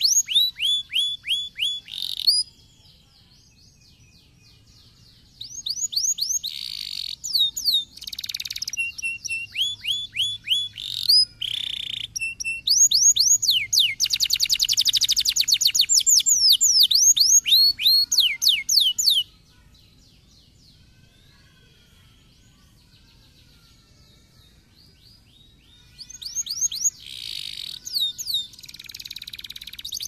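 Domestic canary singing in phrases: quick runs of the same down-slurred whistled note repeated many times, and a fast, dense trill in the middle, with pauses of several seconds between phrases.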